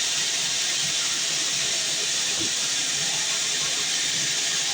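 Sawmill bandsaw cutting through a heavy, dense log: a steady, even hiss.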